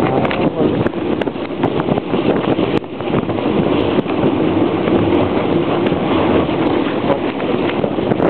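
Dog sled moving over snow: a steady rushing and scraping of the runners on the snow, mixed with wind buffeting the microphone.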